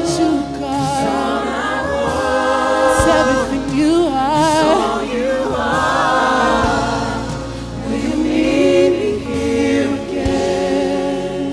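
A worship team and congregation singing a gospel-style worship chorus in several voices over a live band, holding long notes with vibrato.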